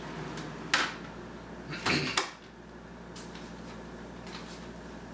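An interior door with window blinds on it being pushed shut: a click under a second in, then a louder knock and rattle about two seconds in that ends in a dull thump, followed by a few faint taps.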